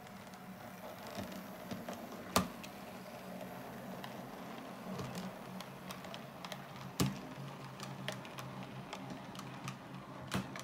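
A model railway train running on its track: a steady electric-motor hum with irregular light clicking of wheels over rail joints and points. Two sharper clicks come about two and seven seconds in.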